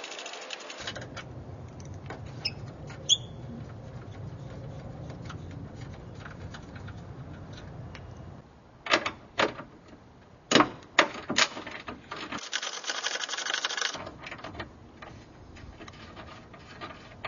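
Hand-tool work on a car's hood hinge bracket: a few small metallic ticks, then a cluster of sharp metallic clicks and knocks about nine to eleven seconds in, followed by a rustling scrape lasting about a second and a half.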